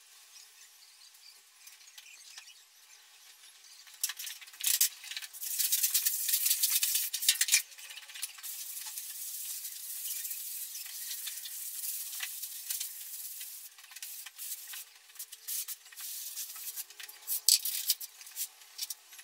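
Polystyrene float rubbing over a plastered wall to smooth it: a scratchy swishing that starts about four seconds in, is loudest for the next few seconds, then goes on in uneven strokes.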